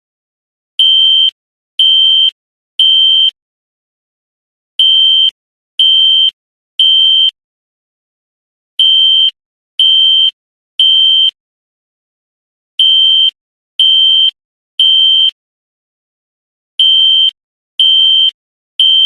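Horn of a System Sensor SpectrAlert Classic horn strobe fire alarm sounding a high-pitched steady beep in the temporal-three evacuation pattern: three short beeps, a pause, repeating about every four seconds.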